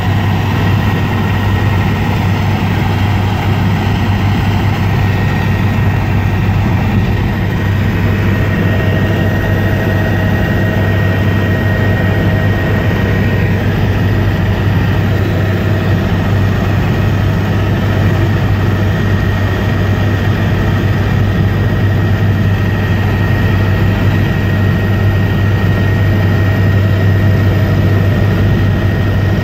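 Helicopter in flight heard from inside the cabin: a loud, steady drone of rotor and engine, with a thin high whine running over it.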